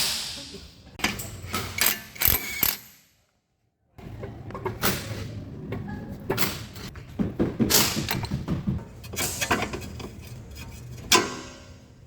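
Irregular mechanical clicks, knocks and clatter, like tools and parts being handled, with a gap of silence about three seconds in and one sharper knock near the end.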